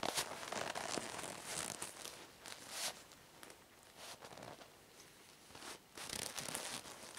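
Long green rubber gloves rubbing and rustling as they are pulled and worked on over the hands and forearms, in irregular swishes that are busiest in the first few seconds and again near the end.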